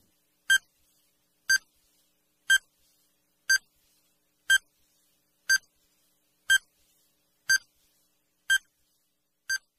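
Quiz countdown timer sound effect: short electronic beeps, one every second, ten in all, the last one a little fainter.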